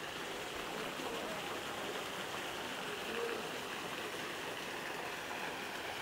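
Steady rush of the fast-flowing Neretva river.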